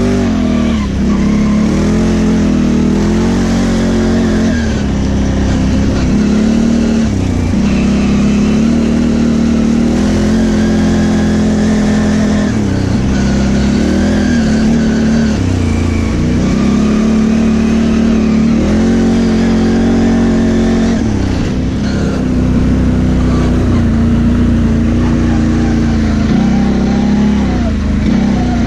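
V-twin ATV engine under way at close range, revving up and easing off again and again as the throttle is worked on a muddy track.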